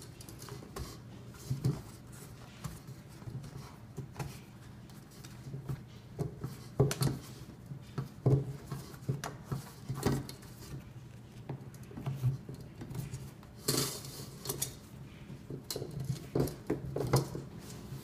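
A wheelchair tire's rubber bead being worked onto its metal rim by hand: irregular clicks, taps and rubbing as the tire is pushed and tucked around the wheel.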